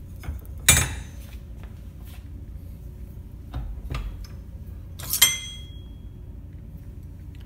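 Metal clanks from a bending iron working a metal orthotic stirrup clamped in a bench vise, as the stirrup is bent. Two sharp clanks, one near the start and one about four and a half seconds later that rings briefly, with a few small knocks between.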